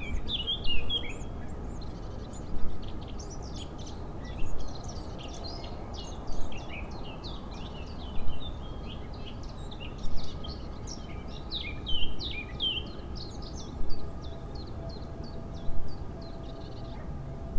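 Small songbirds chirping and singing in quick, high notes over a steady low background noise. A short louder pulse comes back about every two seconds.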